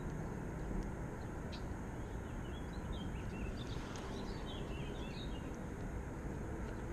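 Steady low outdoor rumble, such as distant traffic or wind. A bird twitters a rapid run of short chirps for about three seconds in the middle.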